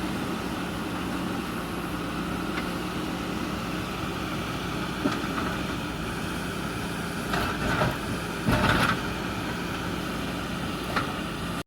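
JCB backhoe loader's diesel engine running steadily, with a sharp knock about five seconds in, two louder bursts of noise about seven and eight and a half seconds in, and another knock near the end.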